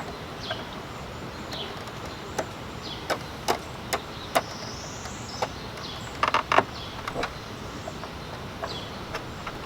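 Scattered sharp plastic clicks and taps of zone wires being handled and fitted into a smart sprinkler controller's wire terminals, with a quick cluster of clicks a little past the middle, over a steady background hiss.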